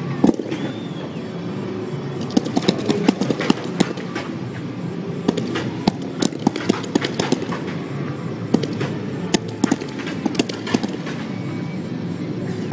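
Mid-level fireworks firing: an irregular, rapid run of sharp pops and cracks over a steady background din, thickest from about two seconds in.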